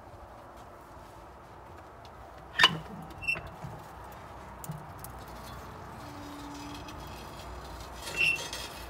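Metal clanks from the firebox door of a Greenwood outdoor wood boiler being unlatched and swung open: a sharp clank about two and a half seconds in with a short metallic ring after it, and another ringing clank near the end.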